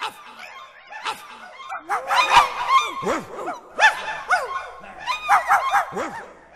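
Several dogs barking and yipping in quick, overlapping short calls.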